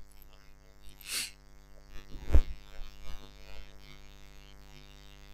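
Breath noises close to a desk microphone: a short hiss about a second in and a sharp knock a little over two seconds in, over a steady low electrical hum.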